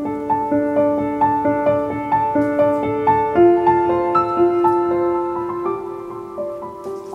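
Background piano music: a melody of held notes over sustained chords.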